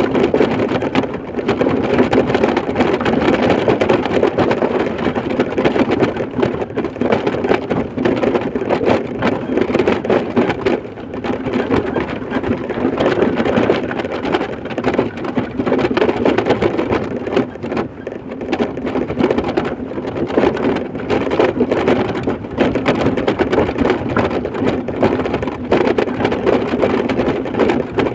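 Steady road noise from a moving vehicle: a continuous rumble with dense crackling throughout and small swells in loudness.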